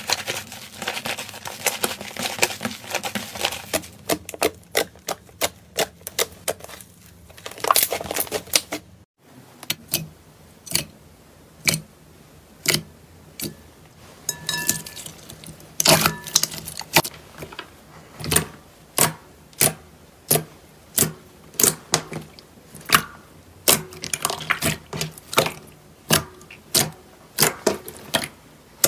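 Slime being squeezed and pressed, giving off sharp clicks and pops. For about nine seconds the clicks come thick and crackling. After a short break they come one by one, about one or two a second.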